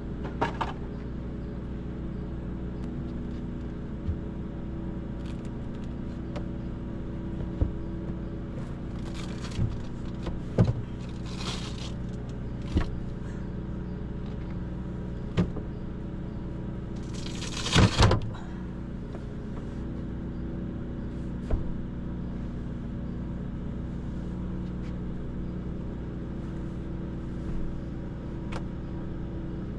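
A steady, even motor hum like an idling engine runs throughout. Over it come scattered knocks, with short rustling bursts near the middle and the loudest a little past halfway.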